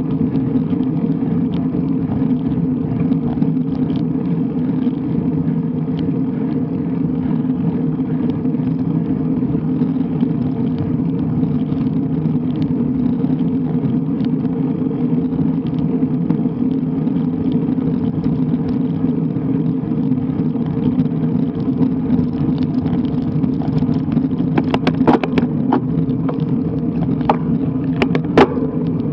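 Steady low rumble of a road bike being ridden: road and tyre vibration with wind on the camera's microphone, with a run of sharp clicks and rattles near the end.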